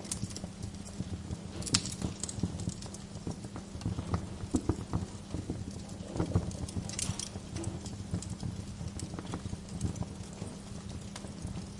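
Wood fire in a fireplace crackling: irregular sharp pops and snaps from the burning logs over a low steady rumble, with a couple of louder pops about two seconds in and around seven seconds.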